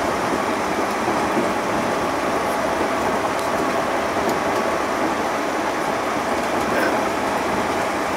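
JR Central 211 series 5000-subseries electric train running along the line: a steady rolling noise of wheels on rail, heard from inside the front car behind the driver's cab.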